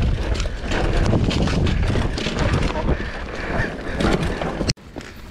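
Mountain bike rattling and clattering over a dry dirt trail at speed, with wind buffeting the microphone. The sound drops off abruptly near the end to a much quieter stretch.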